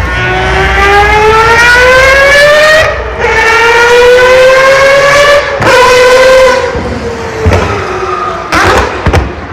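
Mazda 787B's R26B four-rotor rotary engine accelerating hard, its high wailing pitch climbing twice with a brief break between, the gear shifts. The pitch then eases down, with a few sharp cracks near the end.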